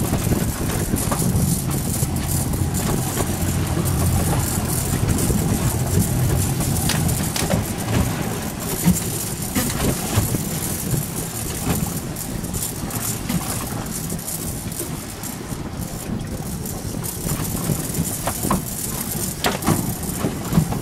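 Boat engine running steadily at low speed, a low hum under constant wind and water noise, with a few sharp clicks.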